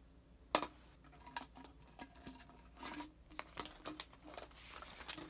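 Hands handling the plastic bottle and cap of a Hidrate Spark 2.0 smart water bottle: a sharp knock about half a second in, then scattered light clicks and rustles.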